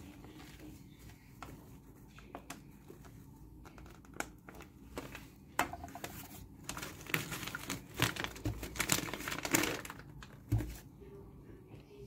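Flour bag crinkling and rustling as it is handled and flour is poured from it into a ceramic bowl, in scattered crackles that grow busiest in the second half, with a dull thump near the end.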